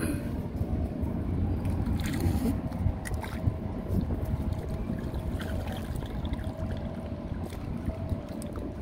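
Wind rumbling on the microphone over water sloshing and trickling around a submerged net fish trap as it is pulled up by its rope.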